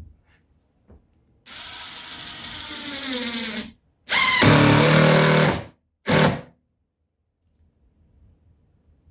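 Power drill driving screws into subfloor boards in three runs: a steady run of about two seconds, a louder run of about a second and a half, then a short blip.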